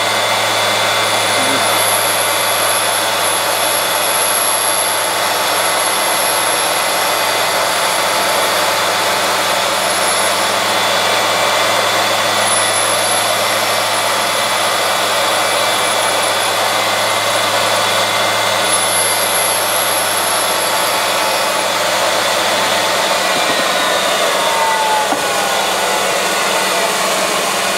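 Valve-refacing grinder running, its stone wheel grinding the 45-degree face of a Chrysler 440 big-block valve turning in the chuck. The sound is a smooth, constant humming ring, the sign of the wheel cutting evenly all the way around the face. A low hum underneath fades out near the end.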